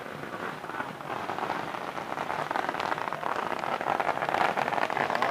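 Strings of firecrackers crackling in a dense, continuous run of small pops, growing louder toward the end.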